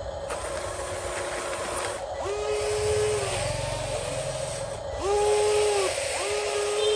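Electric motors of a homemade RC model excavator running under a steady hum, with short whines that rise, hold for about a second and fall away, about two seconds in and again twice near the end, as the machine is worked.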